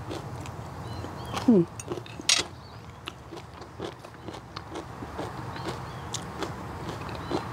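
A person chewing stir-fried bamboo shoots, with many small clicks and crunches. There is a brief falling vocal sound about one and a half seconds in and a short loud hiss just after two seconds.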